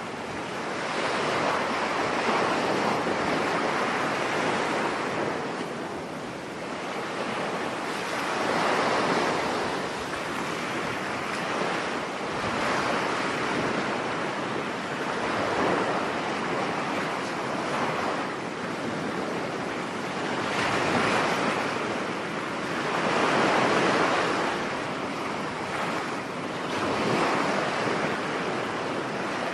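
Sea surf breaking on a beach in stormy weather, with wind. The wash swells and falls back every few seconds.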